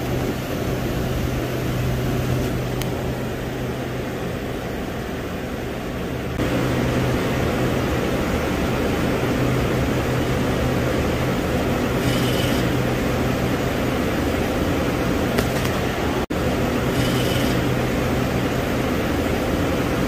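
Steady refrigeration machinery hum that grows louder about six seconds in, with two brief high-pitched whirs about 12 and 17 seconds in from a Carel E2V electronic expansion valve's stepper motor driving; the valve is diagnosed as failing, behind the coil freezing up on one side.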